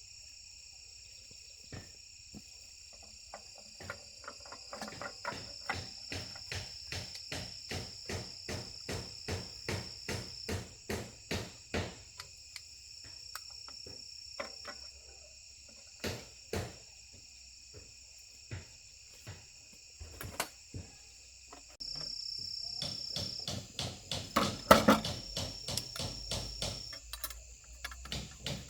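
Repeated light hammer taps on a workpiece, about two a second with short pauses, and a louder cluster of knocks near the end, over a steady high-pitched chirring of insects.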